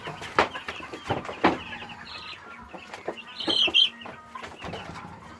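Chickens clucking and chirping, with two sharp knocks early on and one loud shrill call a little past the middle.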